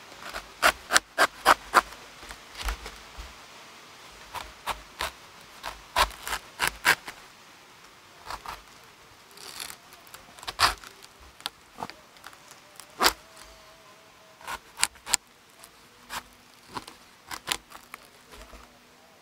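Knife blade cutting into a durian's thick, spiky husk: sharp crunching cracks, irregular and in quick clusters, as the husk splits along its seam.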